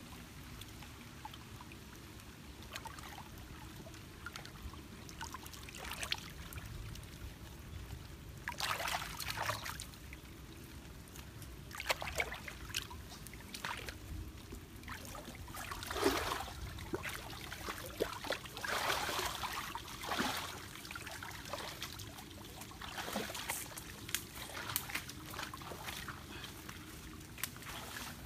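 Water trickling and sloshing around a person wading through a shallow stream, with irregular splashes.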